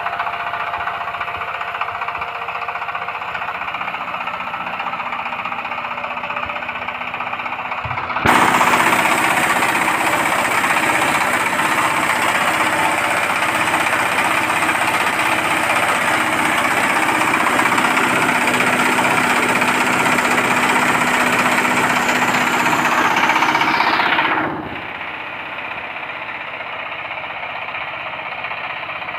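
Hammer mill grinding corn into meal, driven by a 24 hp single-cylinder diesel engine running steadily. About eight seconds in the sound jumps suddenly louder and brighter, and it drops back to the earlier level near the end.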